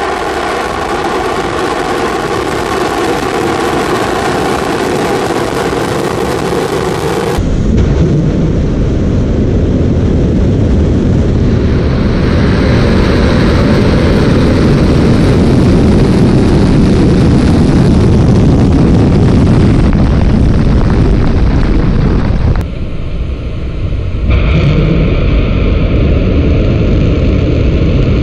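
Loud, steady rocket-engine noise from the Angara 1.2's RD-191 first-stage engine at liftoff, cut between different recordings. The sound changes abruptly about seven seconds in, when it turns deeper and fuller, and again past twenty-two seconds, when it briefly drops and thins before returning.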